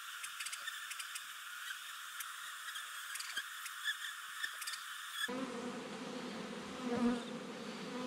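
Swarm of honey bees buzzing around and on a hive box: a steady hum of many bees. About five seconds in it turns abruptly fuller and lower.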